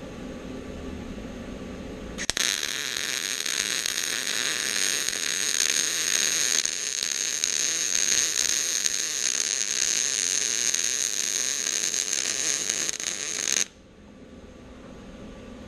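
A welding arc crackling and hissing steadily as a bead is laid, starting suddenly about two seconds in and cutting off abruptly near the end when the arc is broken.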